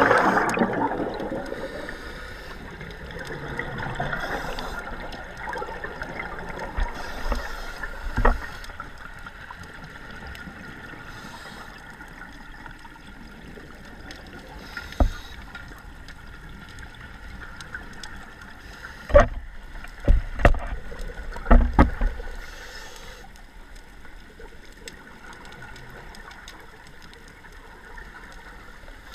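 Scuba diver's regulator breathing underwater: a loud gush of exhaled bubbles at the start, then fainter bubble bursts every few seconds. Several sharp knocks come near the middle, the loudest group about two-thirds of the way through.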